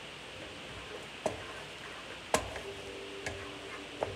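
Wooden spoon knocking against a non-stick skillet while stirring a thick cream sauce: four sharp taps about a second apart, the loudest about two seconds in, over a steady hiss.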